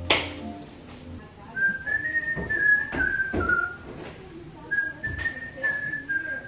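A person whistling a tune, a single clear line of notes in two short phrases. A sharp knock comes right at the start, with a few lighter knocks during the whistling.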